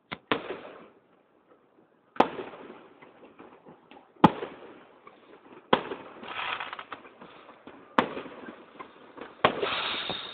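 Aerial fireworks exploding: about seven sharp bangs a second or two apart, each trailing off in echo, with a crackle of bursting stars between them that thickens near the end.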